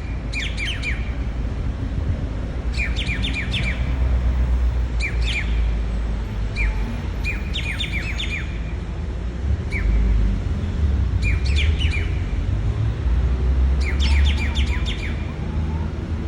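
Grey treepie calling: short clusters of sharp chirping notes, repeated every second or two, over a steady low rumble.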